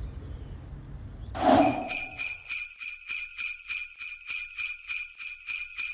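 Sleigh bells shaken in a steady rhythm, about three shakes a second, starting after a brief rushing sound about a second and a half in.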